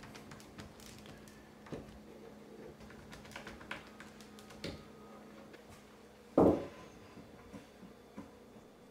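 Faint clicks and taps as screws are driven with a small cordless screwdriver into 3D-printed plastic hinges on a plywood panel, with one short, louder knock about six and a half seconds in.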